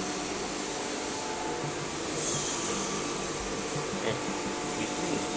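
Steady hum of running machinery, an even noise with several constant tones, like a motor or fan running, with a brief high hiss about two seconds in.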